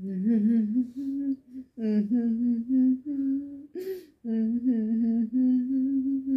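A woman humming with her mouth closed and full of bread, in about six short phrases of held notes that step up and down between a few low pitches.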